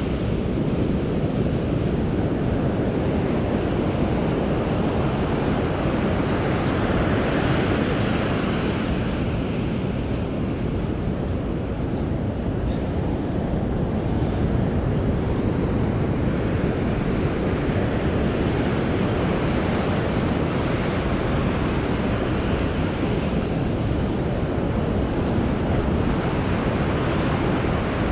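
Ocean surf breaking on a sandy beach, swelling every few seconds as waves come in, with wind buffeting the microphone.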